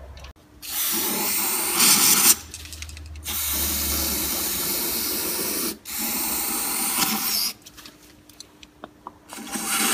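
Aerosol brake cleaner hissing out of the can's thin straw nozzle into a plastic brake fluid reservoir. It comes in three sprays of about two seconds each, with short pauses between them.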